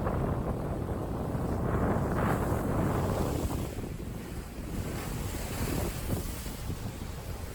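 Wind buffeting the microphone with a low rumble, heavier for the first three seconds or so, over the wash of sea waves.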